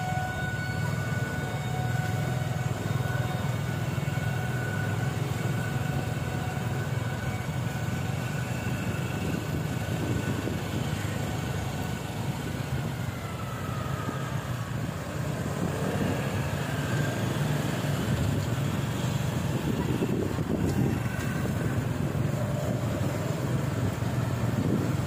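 Steady low rumble of a motor vehicle running, with faint high tones fading out in the first half.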